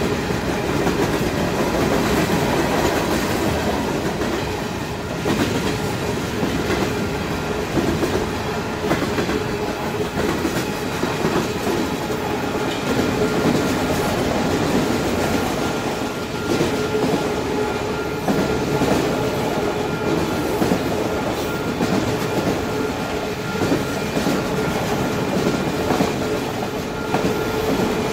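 Freight train cars rolling past at speed: a steady rumble and clatter of steel wheels over the rails, with a faint steady metallic tone running through it.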